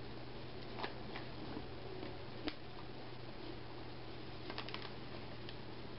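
Faint, scattered small crunchy clicks of jalapeño cashews being handled and chewed, a few isolated ones then a short cluster near the end, over a steady low electrical hum.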